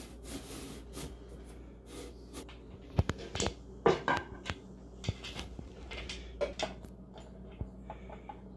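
Melamine-faced particleboard panels of a flat-pack cabinet knocking, scraping and clicking as they are handled and fitted together by hand, with two sharp knocks about three and four seconds in.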